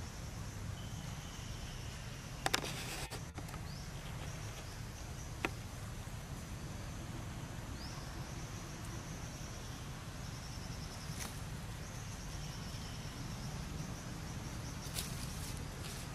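Outdoor ambience of insects buzzing in a high, pulsing drone over a steady low rumble, with a few sharp clicks, the loudest about two and a half seconds in.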